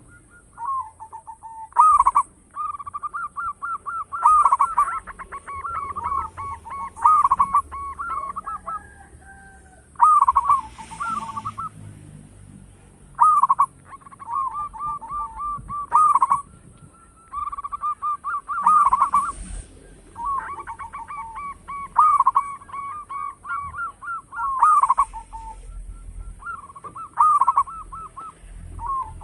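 Zebra dove (perkutut) cooing: repeated bursty phrases of quick, rolling staccato notes, each a second or two long, one after another with short pauses.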